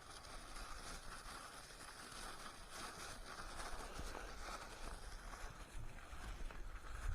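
Faint outdoor ambience on a boat: a low wind rumble on the microphone and a steady hiss, with a few soft handling clicks as bread is mashed with water for groundbait.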